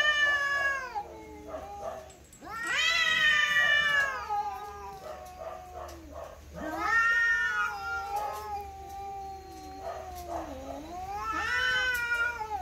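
Two cats facing off, caterwauling at each other: long drawn-out yowls that swell and fall about four times, with a lower moaning wail carrying on between them.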